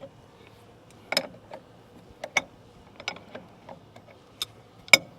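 Hand wrench and metal fittings clicking and clinking as air-line fittings are worked loose from a truck's air compressor: a dozen or so sharp, irregular clicks, the loudest near the end.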